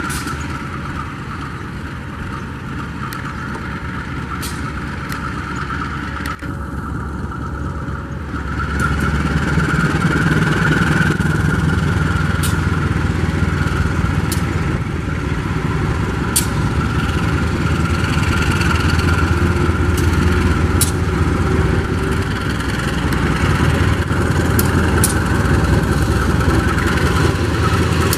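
KAI CC 201 (GE U18C) diesel-electric locomotive engine running with a steady low drone. The engine grows louder about nine seconds in as it is throttled up and the train pulls away, with scattered sharp clicks over it.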